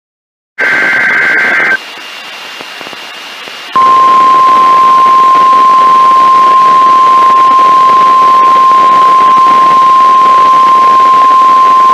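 NOAA Weather Radio weekly test heard over a radio with static hiss: a brief burst of SAME digital header tones about half a second in, then a couple of seconds of hiss, then the steady 1050 Hz warning alarm tone, held loud for about nine seconds.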